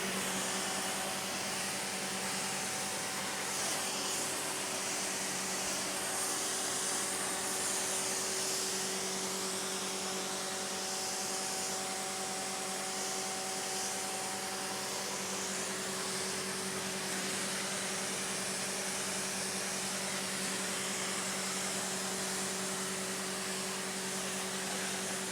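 AVA Evolution P80 electric pressure washer running with the lance spraying: a steady motor and pump hum under the even hiss of the water jet.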